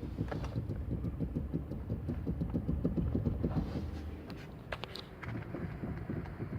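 Kia Soul electric power steering column giving a rapid, irregular low knocking as the steering wheel is worked back and forth. The knock comes from play in the column, the sign of a burst star-shaped rubber coupling bushing where the electric steering motor meets the shaft.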